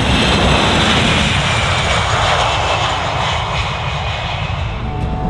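KC-135 Stratotanker's four turbofan jet engines running at high power as the tanker lifts off and climbs away. A loud jet roar with a high whine, easing off a little as it pulls away.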